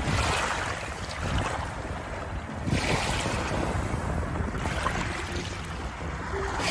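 Water waves washing in: a rushing noise that swells and fades every few seconds.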